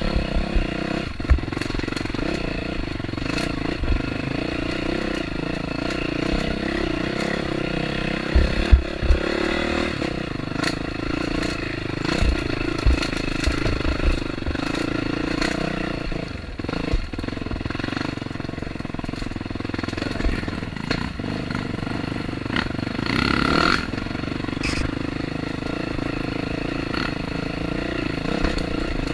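Off-road motorcycle engine running steadily under way on a dirt trail, with scattered clicks and knocks from the bike over rough ground.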